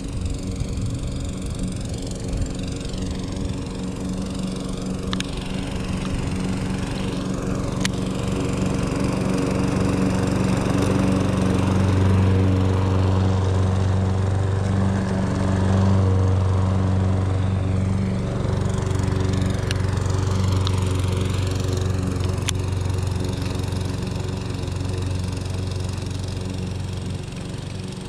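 Lawn mower engine running steadily close by, growing louder as it comes nearer, loudest from about 12 to 16 seconds in, then easing off a little as it moves away.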